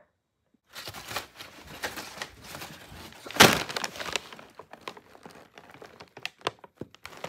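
Paper McDonald's bag crinkling and rustling as it is handled, with one sharp, loud crackle about three and a half seconds in.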